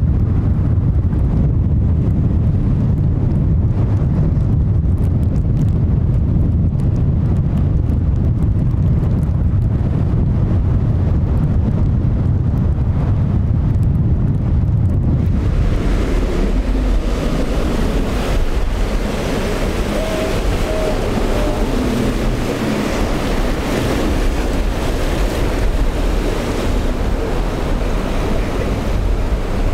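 Strong wind buffeting the microphone with a heavy low rumble, over rough surf. About halfway through the sound changes abruptly to a brighter hiss of breaking waves and wind.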